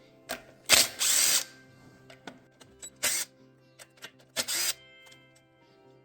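Power tool run in three short bursts: the longest comes about a second in, then two briefer ones, with small metallic clicks between them.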